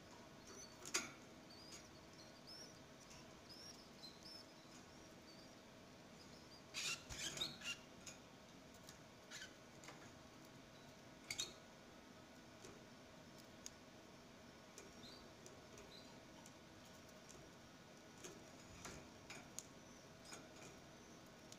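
Faint high peeping of ten-day-old canary nestlings in the nest. A few short rustling clicks come about a second in, in a cluster around seven seconds, and again near eleven seconds.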